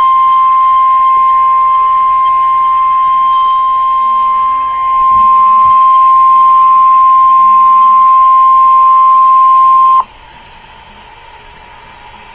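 NOAA Weather Radio alert tone: one steady, loud, high beep held for about ten seconds that cuts off suddenly, leaving radio static hiss. It is the attention signal that precedes a new weather warning broadcast.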